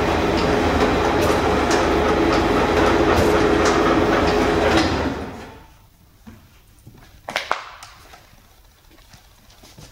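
Werner & Pfleiderer Multimatic dough divider-rounder running with a steady hum and mechanical rattle, then shut off about five seconds in and running down to quiet within a second. After that come only light taps and knocks of dough pieces being handled on the steel table, the loudest pair about seven and a half seconds in.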